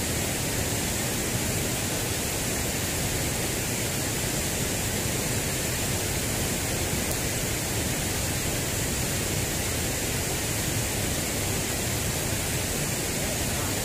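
Steady, unchanging rushing noise of flowing river water.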